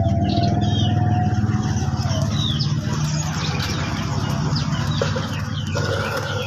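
Many small caged songbirds chirping in short, scattered calls over a steady low engine hum, which is the loudest sound.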